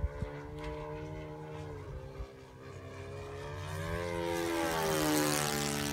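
Radio-controlled Mitsubishi Zero model airplane's engine running in flight, its pitch rising as the plane comes in and dropping sharply as it passes close about five seconds in, where it is loudest, with a rush of air noise.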